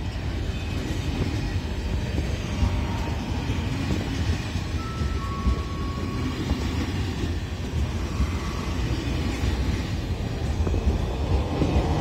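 SNCF TGV inOui high-speed trainset rolling past on the adjacent track, its wheels on the rails making a steady low rumble. A brief thin squeal comes about five seconds in, and the sound grows louder near the end as the rear power car draws level.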